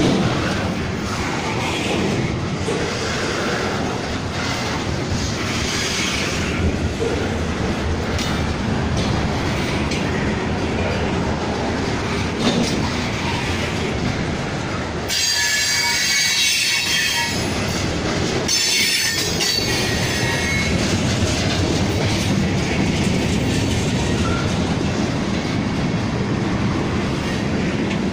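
Freight train cars rolling past close by, their steel wheels running and clattering steadily on the rails. About halfway through, a high-pitched wheel squeal sounds for about five seconds in two stretches.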